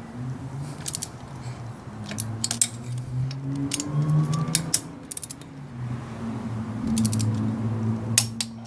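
Torque wrench ratchet clicking in short rapid bursts as the handle is swung back and forth, tightening the exhaust head-pipe nuts at the cylinder head. A low hum runs underneath.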